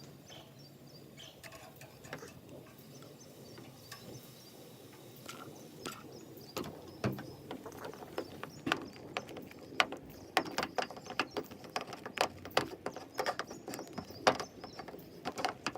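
Slime being mixed and handled: faint at first, then from about six seconds in a busy run of irregular sharp clicks and pops.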